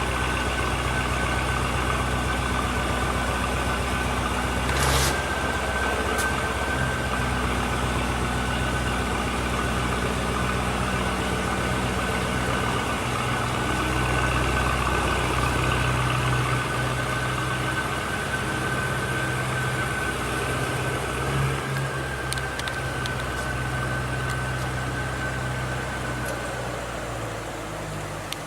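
Audi RS6 C7 Performance's twin-turbo V8, with a Milltek exhaust, running steadily with no revving. A faint steady high whine sits over it from a few seconds in and stops near the end.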